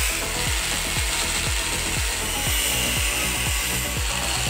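Angle grinder with a cut-off disc cutting through a thick steel chassis tube, a steady grinding hiss with a thin whine. Background music with a regular beat runs underneath.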